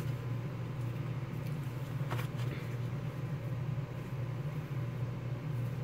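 Steady low mechanical hum of room background, with one faint, brief rustle about two seconds in.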